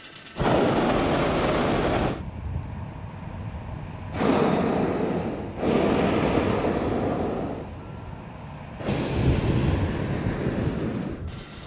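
Hot-air balloon propane burner firing in several blasts of rushing hiss, each a second or two long, starting and stopping abruptly.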